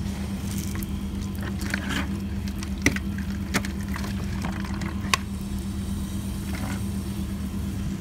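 Water being scooped and sloshed in a container, with a few sharp clicks and knocks, over a steady low machine hum.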